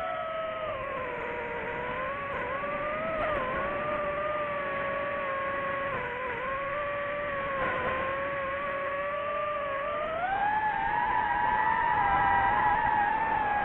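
DJI FPV drone's motors and propellers whining steadily. The pitch rises about ten seconds in as the motors spin up, holds, and starts to fall near the end.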